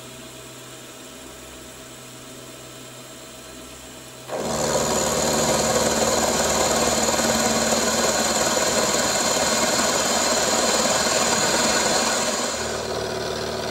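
Milling machine spindle and power feed running, then about four seconds in the end mill bites into the steam chest casting, giving a loud, steady cutting noise. Near the end the noise drops back as the cut runs out, leaving the machine running.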